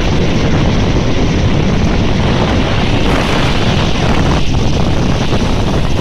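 Strong wind buffeting the microphone over storm waves breaking and washing up a shingle beach, a loud, steady rumble throughout.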